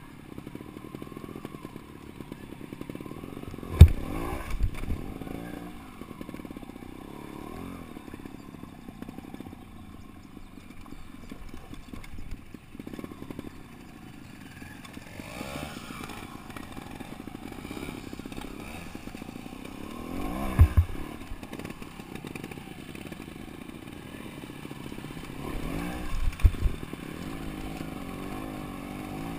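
Montesa trial motorcycle's single-cylinder engine running and revving up and down while climbing a rocky dirt track. Three sharp, heavy thumps stand out, at about four, twenty and twenty-six seconds in.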